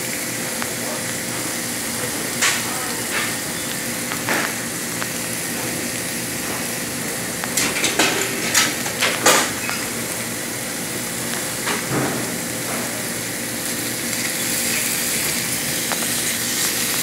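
Chicken pieces sizzling steadily in oil in a steel frying pan, with scattered sharp knocks and clicks against the pan, a cluster of them about eight to nine seconds in.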